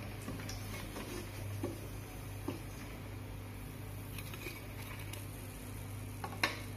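A perforated steel ladle tapping and scraping on a steel plate as fried dumplings are set down. There are a few light clicks, the clearest pair near the end, over a steady low hum.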